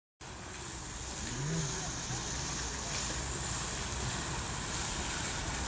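Wall fountain splashing steadily, water from its spouts and a tall jet falling into the basin.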